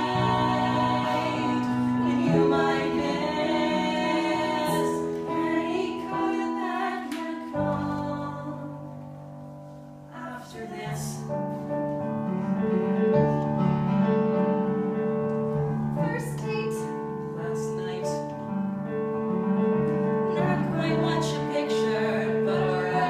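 A young man and a young woman singing a musical-theatre duet with piano accompaniment. It drops to a quiet passage about eight seconds in, then builds again with repeated piano notes under the voices.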